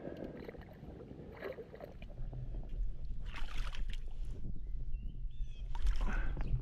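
Water splashing in short bursts, three of them, as a hooked bass is brought in at the bank, over a low wind rumble on the microphone that grows after about two seconds. A few faint high chirps a little after the middle.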